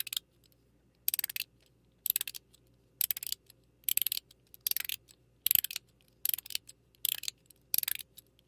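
Mechanical fidget slider (42cosmo XX with PEI internals in a Zerk shell, both tracks set parallel for eight clicks) being slid back and forth, each stroke a quick run of sharp clicks through its detents, about one stroke a second.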